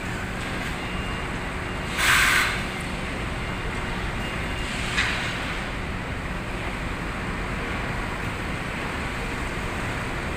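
Steady rumble of warehouse machinery, with an inclined belt conveyor running and carrying cement bags. A short, loud rush of noise comes about two seconds in, and a smaller one about five seconds in.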